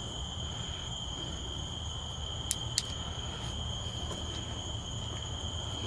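Steady chorus of crickets, a continuous high trill, with two quick clicks about two and a half seconds in.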